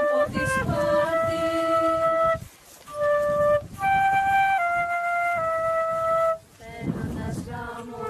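A flute playing a slow melody of long held notes, in short phrases with brief breaks between them.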